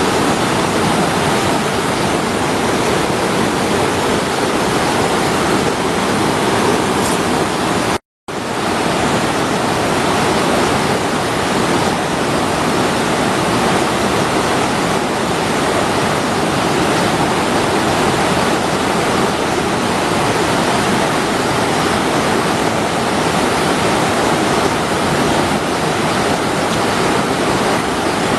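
Fast-flowing river water rushing steadily. The sound cuts out completely for a moment about eight seconds in, then resumes.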